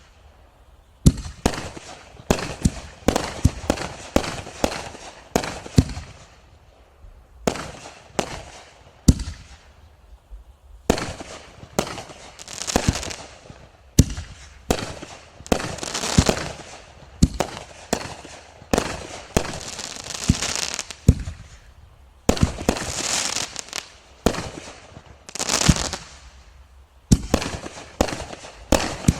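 A consumer fireworks assortment of mortar shells firing in quick succession: launch thumps and sharp breaks overhead, some shells bursting two or three times, with crackling between them.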